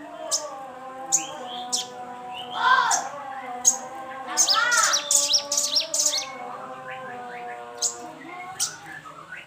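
Sogon songbird singing: sharp high chips repeated every half second or so, with whistled notes that rise and fall, over a steady layered hum. The song is a lure meant to provoke a caged sogon into singing aggressively.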